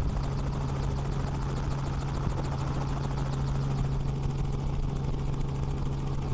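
Helicopter running steadily: a fast, even beat of rotor blades over a constant low hum.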